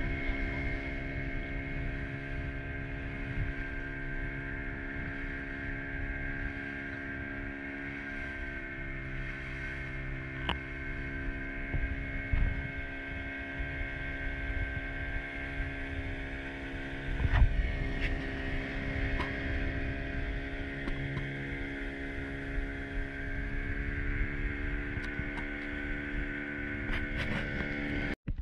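Small fishing boat's engine running steadily under way, holding one even pitch. The sound cuts off abruptly near the end.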